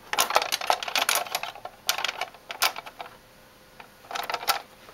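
Plastic-bodied O gauge toy box car with metal sprung trucks being handled and moved on metal model railroad track: a quick run of light clicks and rattles, then a short cluster of clicks just after four seconds in.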